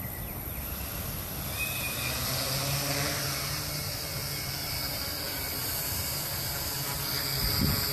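Custom six-rotor hexacopter's electric motors and propellers lifting off and climbing, a steady buzzing hum.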